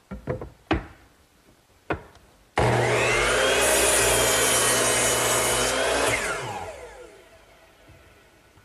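A few light knocks of wood being handled, then a power saw starts abruptly and crosscuts a thick board, the blade's sound turning harsher while it is in the wood. The saw then spins down over about two seconds, its pitch falling.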